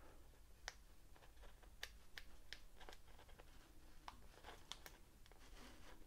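Faint, scattered crinkles and ticks of a diamond painting's plastic cover sheet being handled and lifted at its corner from the sticky canvas.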